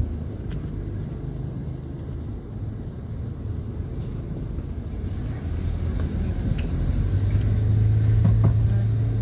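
Car engine and tyre rumble heard from inside the cabin while driving. It grows louder through the second half, where a steady low drone sets in.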